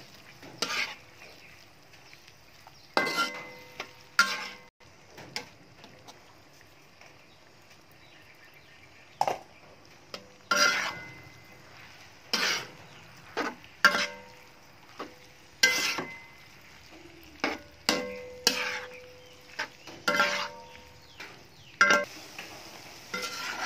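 Slotted spatula stirring and tossing noodles and vegetables in a granite-coated wok: irregular scraping clanks every second or two, several with a short ringing tone, over a faint sizzle.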